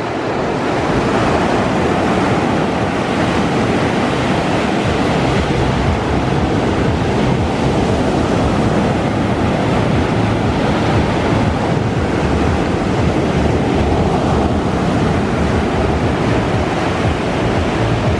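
Rough sea surf: waves breaking in a continuous loud wash, with wind rumbling on the microphone.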